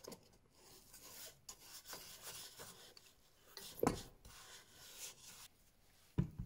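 Brush tip of a glue applicator can rubbed and scrubbed over the insole inside a leather shoe, in short rough strokes. A sharp knock about four seconds in is the loudest sound, and there is another near the end.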